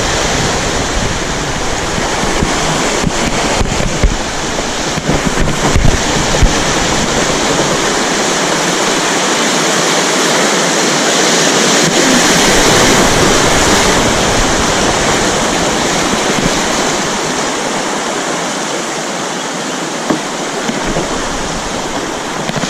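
Loud rushing whitewater of a river rapid as a canoe runs through it, with a few sharp knocks in the first several seconds.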